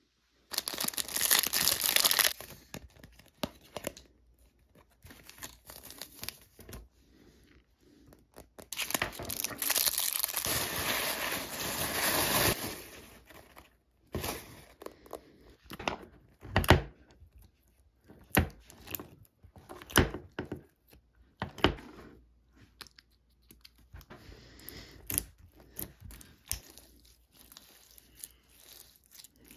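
Tissue paper and plastic packaging crinkling and rustling as a parcel is unwrapped, in two long stretches. Then a clear green slime is squished and stretched, with many short sharp clicks and pops of air bubbles.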